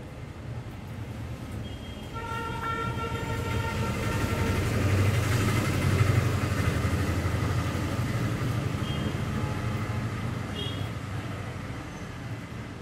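A vehicle passing by: a low rumble that builds to its loudest about five to six seconds in and then fades, with a horn held for about two seconds, starting about two seconds in.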